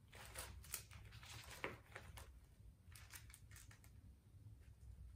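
Thin Bible pages being turned and flicked through by hand: a run of faint, short paper rustles with pauses between.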